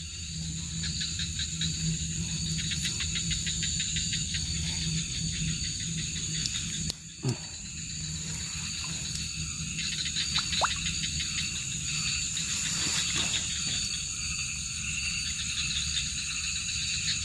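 Night chorus of crickets and other insects: several steady high-pitched trills sounding at once, over a low steady hum.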